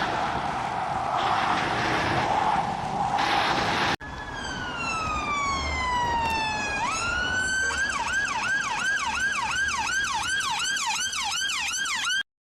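A steady rushing noise for about four seconds, then an emergency siren. The siren sounds one long falling wail, then switches to a fast rising-and-falling yelp, about three to four cycles a second, that cuts off just before the end.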